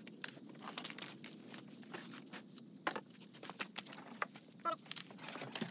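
Faint, scattered knocks, rustles and light clatter of stored gear being handled and pulled out of a travel trailer's storage compartment, with a brief squeak about three-quarters of the way through.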